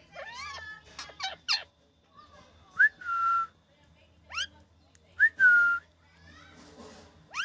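Ringneck parrot (rose-ringed parakeet) calling and whistling: a quick run of warbling chirps at first, then twice a short rising note that runs into a held whistle, with sharp upward squawks in between.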